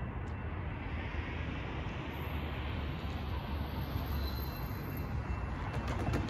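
A steady low rumble with a hiss over it. Near the end a car drives over the railroad grade crossing, and a few sharp clicks come as its tyres cross the rails.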